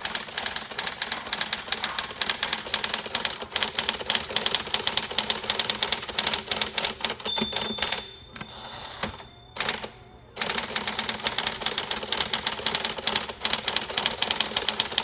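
1959 Smith Corona Electra 12 electric typewriter being typed on fast, a rapid run of type-bar strikes. Typing breaks off for about two seconds past the middle, then resumes.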